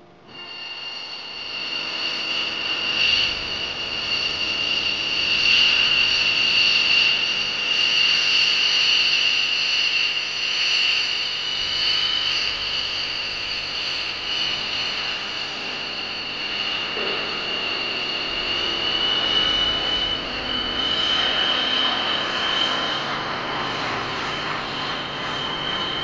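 Lockheed F-117 Nighthawk's twin General Electric F404 turbofans running as the jet taxis: a steady high-pitched turbine whine over a rushing jet noise, the whine edging up slightly in pitch late on.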